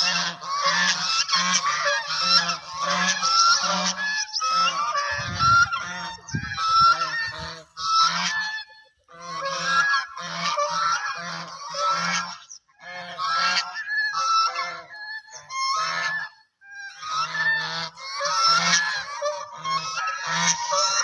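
Several domestic ducks quacking loudly, their calls overlapping in bursts with short pauses between. A brief low rumble comes about five seconds in.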